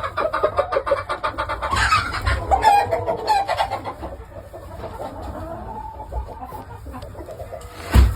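Gamefowl chickens clucking and calling, busiest in the first half and fainter later. A sharp thump near the end.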